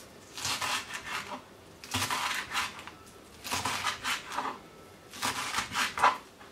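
Chef's knife chopping leek on a wooden cutting board: four quick runs of crisp strokes with short pauses between them.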